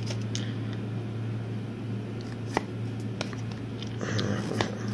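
Trading cards handled in a stack: a few soft clicks and, near the end, a brief brushing rustle as a card is slid off the top, over a steady low hum.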